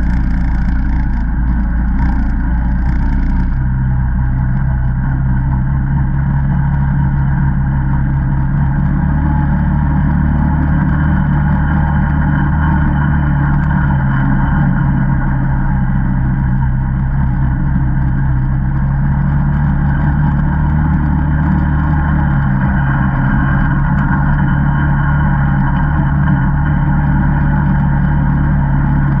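Single-cylinder ATV engine running at a steady trail-riding speed, an even drone with no big changes in revs. A light hiss sits over it for the first few seconds.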